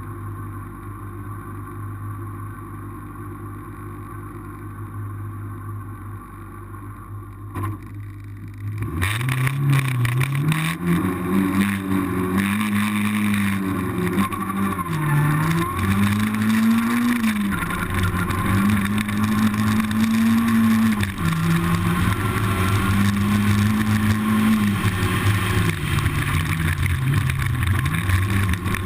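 Rally car engine: a steady low running note for about nine seconds, then suddenly loud as the car is driven hard, the pitch climbing and dropping back again and again at each gear change.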